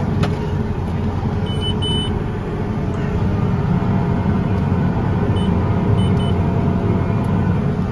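Case IH Steiger 550 tractor running steadily under load, heard from inside its cab as a low drone, while it pulls an 80 ft Flexi-Coil air seeder that is sowing. Short high beeps from the cab monitor sound twice about a second and a half in, and three more times around five to six seconds in.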